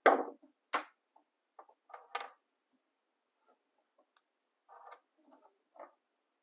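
Irregular clicks and light knocks of a small plastic lamp cord switch and its parts being handled and taken off the cord. The loudest click comes right at the start, with a few sharper ones in the first two and a half seconds.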